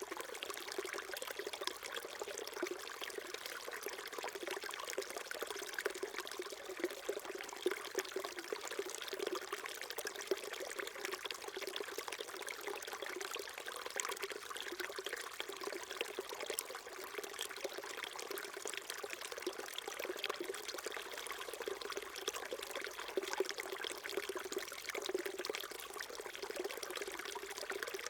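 Small mountain stream trickling and burbling over stones, a steady babble of small splashes.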